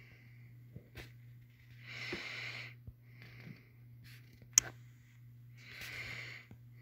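A person breathing close to the microphone: two breaths about three and a half seconds apart, over a low steady hum, with one sharp click about four and a half seconds in.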